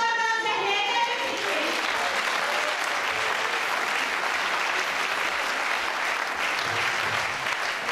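Audience applauding, the clapping swelling in about a second in after a voice over a microphone and then running on steadily.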